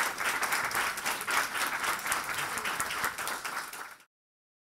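Audience applauding, a dense patter of many hands clapping that cuts off abruptly about four seconds in.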